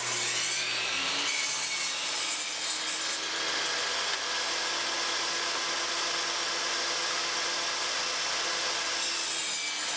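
Table saw running steadily as a wooden board on a miter sled is pushed through the blade, cutting a 45-degree miter.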